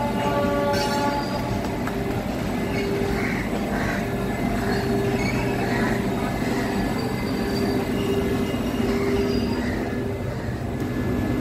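Steady hum and whine of a Vande Bharat Express electric trainset standing at the platform with its doors open, several held tones over a mechanical rumble.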